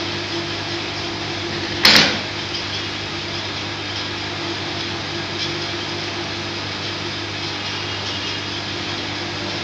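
Steady electrical hum of a U-bend pipe annealing machine while it heats a carbon steel U-bend red-hot, with a short, loud burst of noise about two seconds in.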